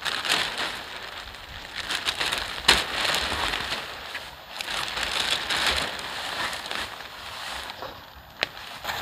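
Clear plastic sheet tarp, made from a mattress cover, crinkling and rustling as it is handled and pegged out, with scattered small clicks and a sharper snap about two and a half seconds in.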